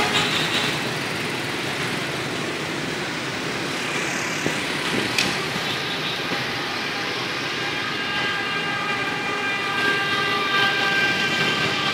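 Street traffic noise heard while riding along a city road: a steady rush of wind and motorbike engines, with a faint steady whine joining in the second half.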